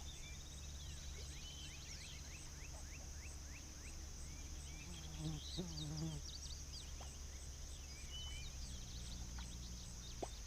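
Faint outdoor ambience by the water: many small birds chirping, a steady high insect drone, and two low animal calls about five to six seconds in.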